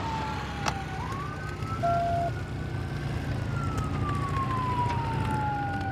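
Police siren sounding a slow wail, heard from inside a patrol car: the pitch bottoms out about a second in, rises for two seconds, then slowly falls again. Under it runs the steady drone of the car's engine and tyres at low speed, with a brief beep about two seconds in.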